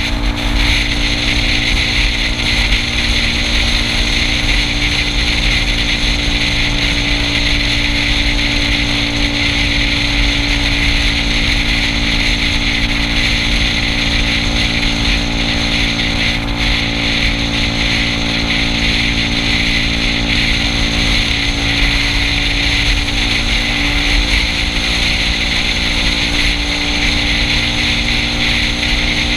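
Yamaha Cygnus scooter's 125 cc single-cylinder four-stroke engine running steadily at cruising speed, with steady wind and road noise over the microphone.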